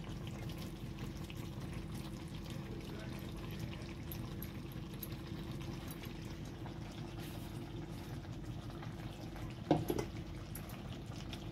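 Curry simmering in a kadai on a gas stove: a steady bubbling hiss with a faint low hum, and one brief louder sound near the end.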